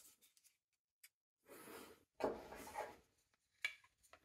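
Plastic rubbing and scraping as the twist-lock mounting base of a Heiman HS1SA-E smoke sensor is turned and taken off the body, loudest about two seconds in, with a short click near the end.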